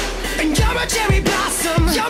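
A song playing as background music, with a steady beat of low drum hits about every 0.6 seconds.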